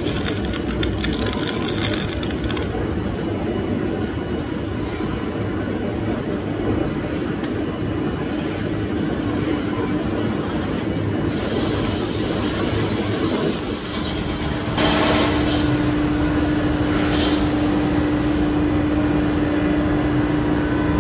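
TIG welding arc buzzing on bronze for about the first two and a half seconds, then cutting off. A steady machine hum runs underneath. About 15 seconds in, a louder hum with a steady low tone starts and keeps going.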